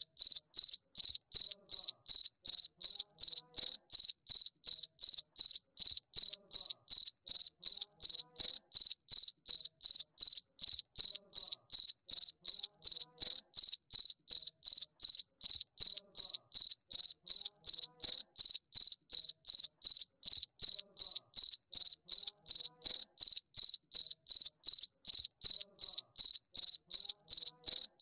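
A cricket chirping steadily: one high-pitched chirp repeated evenly, about three times a second.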